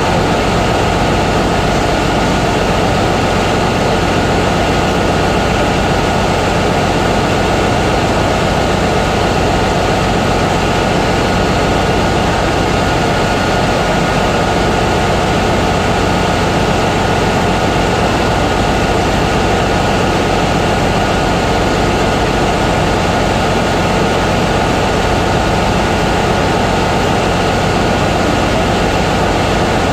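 Steady ship's engine-room machinery noise: a constant loud drone with a low hum and a few steady whining tones, unchanging throughout.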